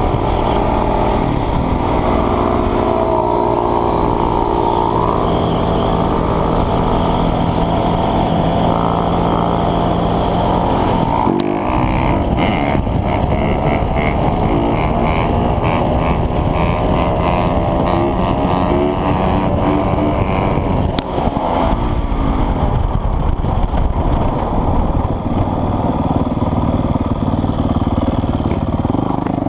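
2017 Yamaha YZ450F dirt bike's single-cylinder four-stroke engine running under way, heard close up from the handlebars. The engine note holds steady at first, breaks briefly about eleven seconds in, then rises and falls with throttle and gear changes.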